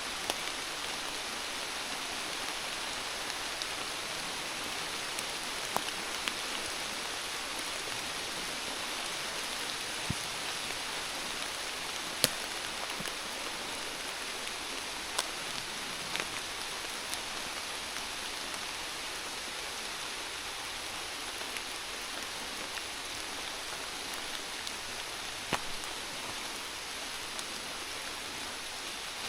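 Steady rain falling, an even hiss, with a few single louder drops ticking now and then.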